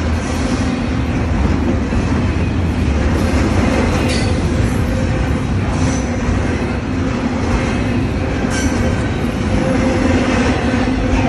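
Double-stack intermodal container freight train rolling past at close range: a steady heavy rumble of wheels on rail, with brief faint wheel squeals.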